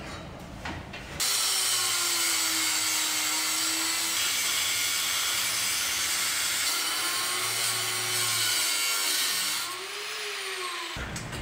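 Angle grinder cutting through old metal water pipe, sparks flying. It starts abruptly about a second in and runs loud and steady with its pitch wavering under load, drops back shortly before the end and then stops.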